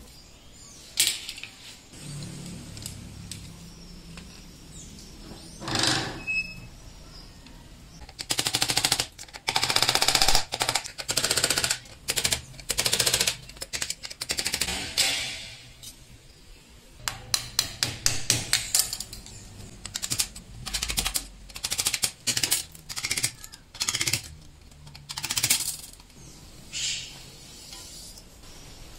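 Bursts of quick rasping strokes and clatter from aluminium channel profiles being worked by hand, the longest and loudest run about a third of the way in.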